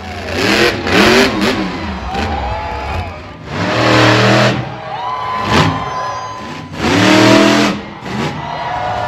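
Monster truck engines revving hard in repeated full-throttle surges, their pitch rising and falling, about four loud bursts as the trucks launch and land on jumps.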